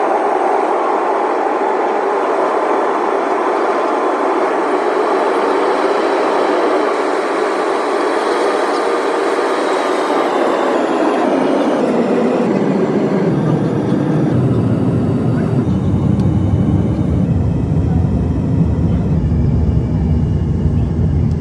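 Jet airliner cabin noise on the landing approach, a steady rushing hum. About two-thirds of the way through it turns into a deeper, heavier rumble.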